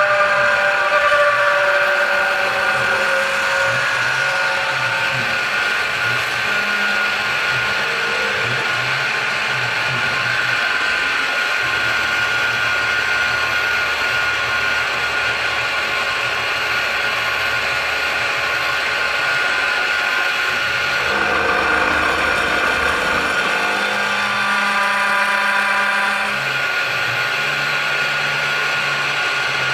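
Precision Matthews PM-727M CNC-converted milling machine cutting holes in 2-inch angle stock with an end mill under flood coolant: spindle and cutting noise with a steady whine. The tones shift as the cut moves, most clearly about two-thirds of the way through. The thin angle clamped in the vise vibrates a good deal in the cut.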